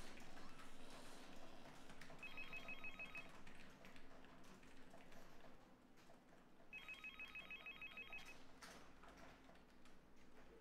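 Telephone ringing twice, each ring a fast electronic trill of a second or so, the second ring a little longer.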